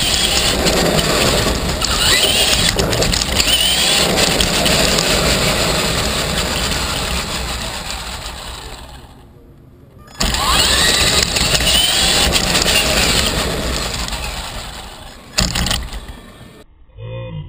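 R/C monster truck running flat out, heard from a camera on its own chassis: the motor and drivetrain whine rises and falls with the throttle over a loud rush of tyre and wind noise. The sound fades away, then starts again abruptly about ten seconds in for a second run, and fades again near the end.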